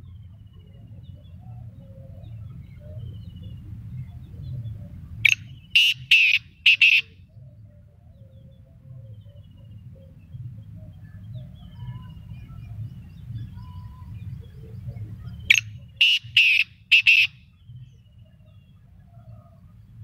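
Black francolin calling twice, each call a harsh burst of about four loud notes lasting under two seconds, the first about five seconds in and the second about fifteen seconds in. Small birds chirp faintly in the background over a steady low rumble.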